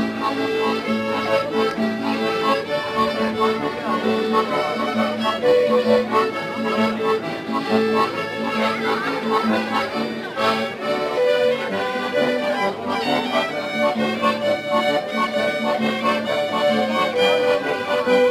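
Live Alpine folk music played by a small band with a steady beat, a guitar strumming along.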